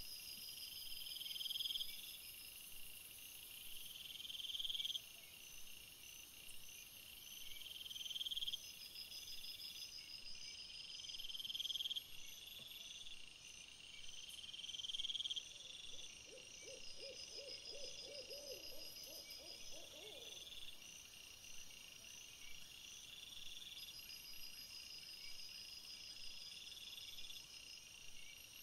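Night insect chorus: a chirping phrase that swells and cuts off sharply about every three and a half seconds, over fainter steady high trills. Around the middle, a brief run of low, rapid pulsed calls, about three a second, comes in for some four seconds.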